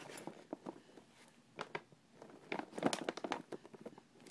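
Short, irregular crinkling rustles and light clicks, several in quick clusters around the middle.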